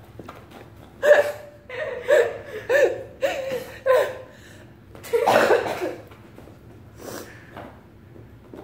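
A person laughing in a run of short bursts, with the longest and loudest burst about five seconds in.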